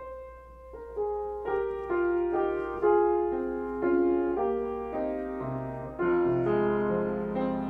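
Solo piano playing a slow, gentle melody, with deeper bass notes coming in about halfway through.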